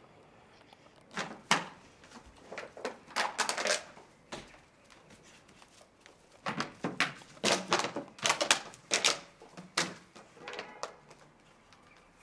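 Empty plastic drink bottle crackling and clattering in irregular bursts as an American bulldog puppy bites, carries and shakes it, with a pause in the middle.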